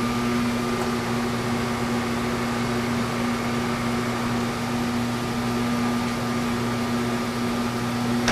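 Machine tool running steadily in gear under power feed, a constant hum, during a boring pass inside a fiberglass tube.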